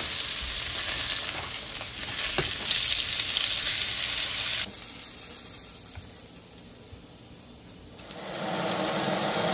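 Steak searing in hot oil in a stainless steel frying pan, a loud steady sizzle. About halfway through it drops suddenly to a faint sizzle, then grows loud again near the end.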